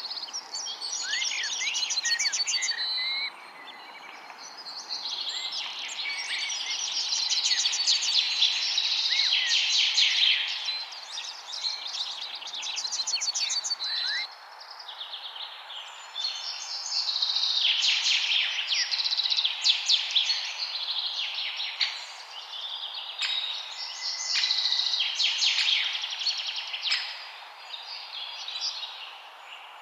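Several small songbirds chirping and singing, with rapid trills and short rising whistles overlapping, over a steady background hiss. The birdsong drops away suddenly about three seconds in and again about fourteen seconds in, then returns.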